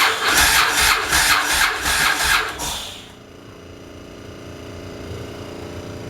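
Yamaha Road Star's air-cooled V-twin being cranked over by its starter, about four loud pulses a second, catching after about three seconds and settling into a steady idle.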